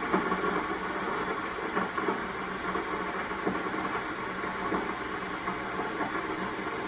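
Film projector running steadily, its motor and film-transport mechanism making a continuous mechanical noise while film with no optical soundtrack runs through it.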